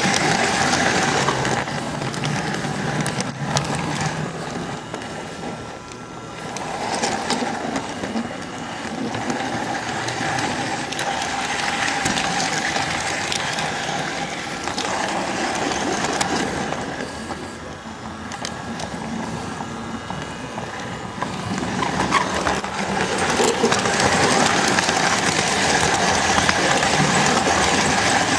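S-gauge model train running on the track: the Flyonel Docksider's small electric motor whining steadily and the wheels ticking over the rails, picked up close from the flat car it pushes. The running sound dips twice and picks up again.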